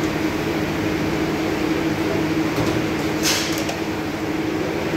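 A steady low hum over even background noise, with a brief high hiss about three seconds in.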